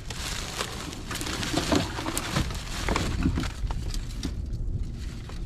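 Rustling and scattered small knocks of a brush-pile tree and weight bag being handled while paracord is tied around the trunk, heaviest in the first four seconds and then easing off, over a steady low rumble.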